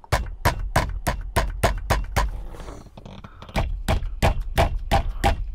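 Hands knocking the steering wheel of a 2006 Saab 9-5 to jar it loose on the steering column splines, the centre nut backed off a few turns. "Love taps": two runs of quick thumps, about three a second, with a pause of about a second between them.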